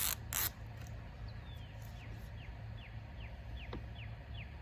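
A bird calling a run of about nine short chirps, each sliding downward in pitch, evenly spaced a little under three a second, over a steady low hum. Two brief rasping noises come right at the start.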